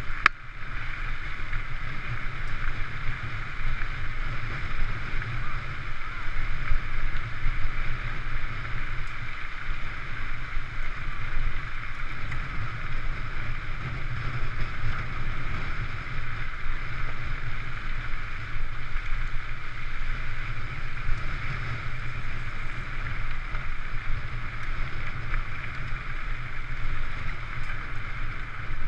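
Steady rushing noise of riding a mountain bike along a gravel track: wind buffeting the GoPro's microphone over the hiss of tyres rolling on gravel.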